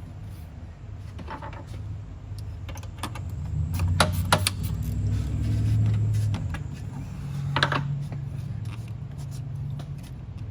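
Hands working a silicone hose coupler and intercooler pipe onto a throttle body: rubbing and handling noise, with a few sharp clicks and knocks about four seconds in and again near eight seconds.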